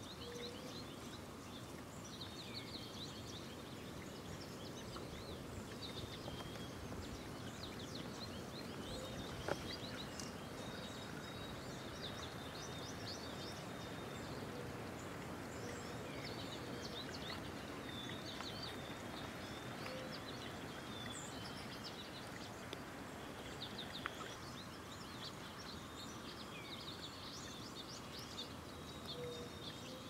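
Faint outdoor ambience: a steady hiss with small songbirds chirping and trilling throughout, and a couple of sharp clicks, the louder one about nine seconds in.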